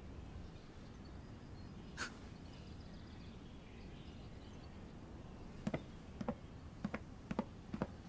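Soft footsteps, short taps about two a second, beginning a little past halfway, over faint room tone. A single brief swish comes about two seconds in.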